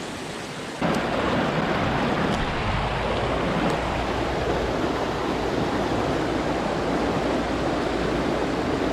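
Shallow, rocky river rapids rushing close by: a steady, loud wash of water that steps up sharply about a second in.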